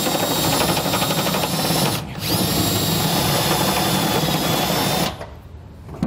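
Cordless drill driving a 7/8-inch step bit through the steel floor of a pickup bed to enlarge a bolt hole. It runs in two goes, with a short pause and a spin-up again about two seconds in, and stops about five seconds in.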